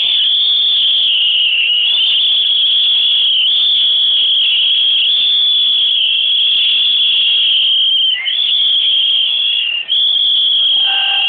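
Football fans in the stands whistling shrilly: long, held whistles, one running into the next with the pitch stepping a little, broken only briefly twice near the end.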